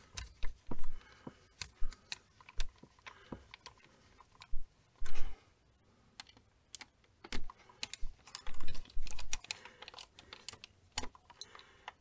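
Hand screwdriver driving the mounting screws of a single-pole light switch into its wall box: irregular metal clicks and taps, with a few short rustling bursts.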